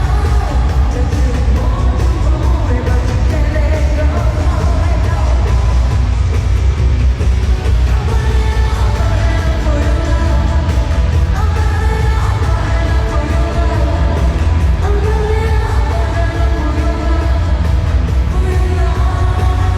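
Loud pop music with a singing voice over a heavy, steady bass.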